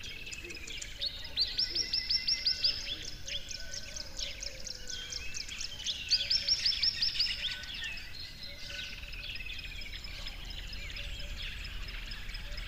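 Songbirds singing, with two loud phrases of quick repeated notes, each lasting about a second and a half, one starting about a second in and the other about six seconds in, over quieter chirping.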